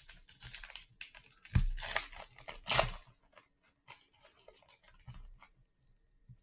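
A trading-card pack wrapper being torn open by hand, crinkling, with two louder rips near the second and third seconds, then softer scattered crinkles and clicks as the pack is handled.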